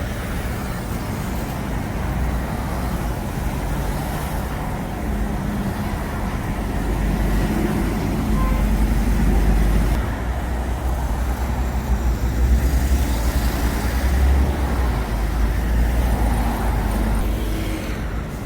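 Road vehicle noise: a steady low rumble of motor traffic, swelling in the middle and easing off near the end.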